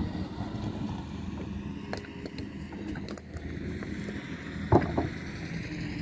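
A steady engine hum with scattered clicks and knocks; the loudest is a single knock nearly five seconds in.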